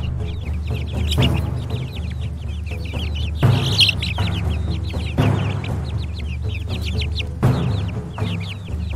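A tub of month-old chickens peeping, many short falling cheeps a second without a break. Underneath, background music with a broad hit about every two seconds.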